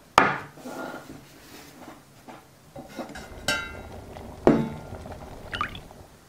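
Metal cookware handled on a table: a run of sharp knocks and clinks. One clank about three and a half seconds in rings briefly like struck metal, and a short squeak follows near the end.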